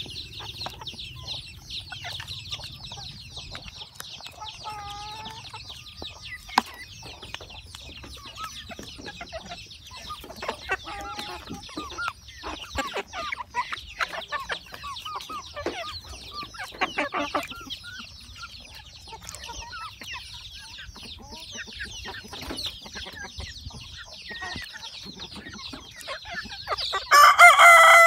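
Chickens clucking softly as they peck, over a steady high hiss, and a rooster crowing loudly near the end.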